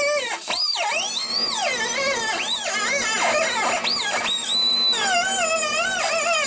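Handheld angle grinder cutting into the steel tail light panel, its high whine sliding up and down in pitch as the wheel bites and eases off. There is a brief dip about half a second in.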